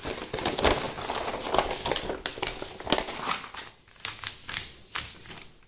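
Crinkling and rustling of a large folded printed chart, a line-follower track diagram, as it is handled and unfolded. It comes in irregular crackles, busiest in the first three seconds or so and sparser near the end.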